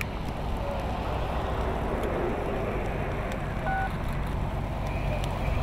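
A burning semi-trailer's fire crackling faintly over a steady low rumble of running engines. A short electronic beep sounds about two-thirds of the way in.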